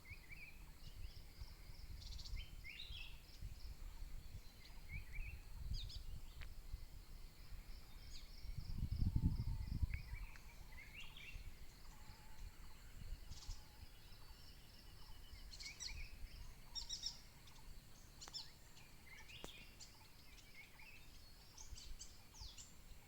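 Several birds chirping and trilling over low wind rumble on the microphone, with a stronger gust about nine seconds in.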